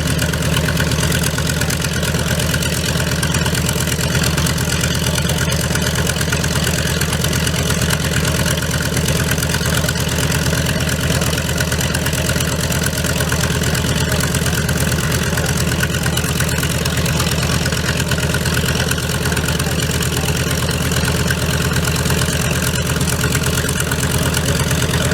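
Piston aircraft engine running steadily at low power, the pitch and level unchanging throughout.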